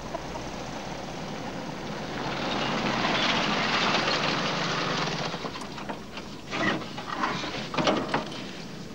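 Red Jeep CJ-7 Renegade driving up and pulling in, its engine and tyres growing louder to a peak about three to four seconds in and then easing off. Near the end there is a run of short knocks and crunches as it rolls to a stop.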